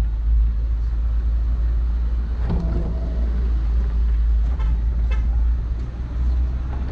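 Suzuki Samurai's engine and road noise heard from inside the cabin while driving, a steady low rumble.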